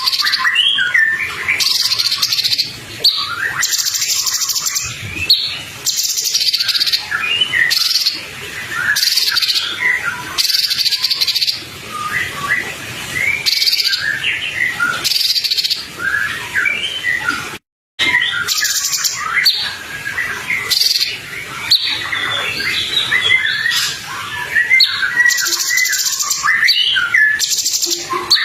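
A songbird singing a fast, varied stream of short chirps and whistled notes, mixed with repeated harsh buzzy notes. The recording cuts out for a split second a little past halfway.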